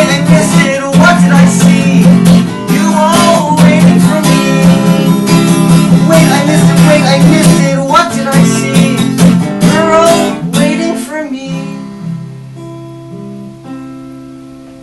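Acoustic guitar strummed with singing, ending about three-quarters of the way through on a final chord that rings out and fades away.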